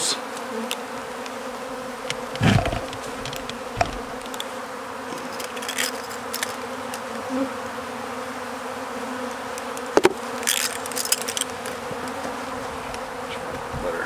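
Honeybees buzzing around an opened hive, a steady drone, broken by a few short knocks and a brief rustle.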